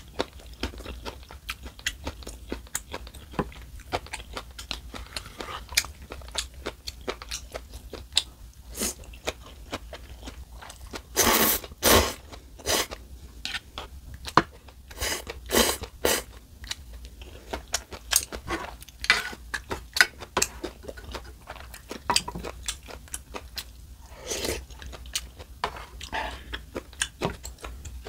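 Close-miked chewing and slurping of ramen noodles: many small wet mouth clicks, with a few louder slurps, the loudest about eleven seconds in and again around fifteen seconds in.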